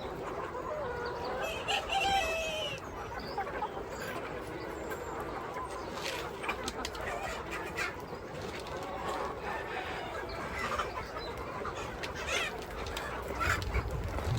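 Chickens clucking, with a rooster crowing about two seconds in.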